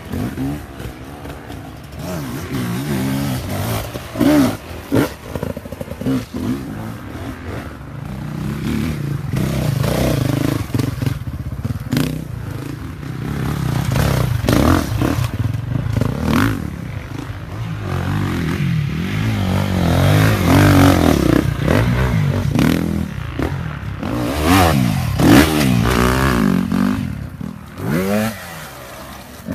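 Several enduro dirt bikes passing one after another on a tight trail. Their engines rev up and drop back repeatedly in pitch as the throttle is worked, louder each time a bike goes by, with occasional clacks.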